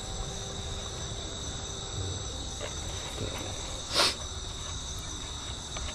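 Night insects chirring steadily, several constant high-pitched tones at once. A brief sharp handling noise comes about four seconds in.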